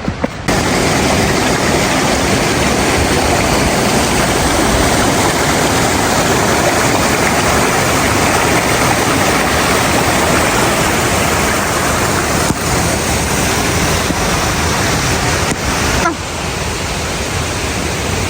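Waterfall: a loud, steady rush of falling water, dropping a little in level near the end.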